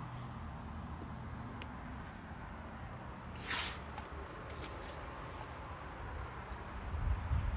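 Low steady background rumble, with a short rushing noise about three and a half seconds in and a low thump of handling noise near the end.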